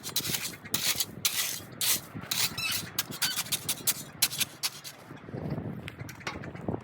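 A quick, irregular series of short scrapes or crunches, several a second, thinning out about five seconds in.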